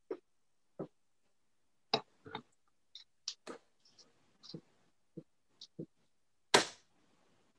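Darts striking a bristle dartboard, one at a time, among scattered small clicks and knocks. The loudest strike comes about six and a half seconds in, with another sharp one about two seconds in.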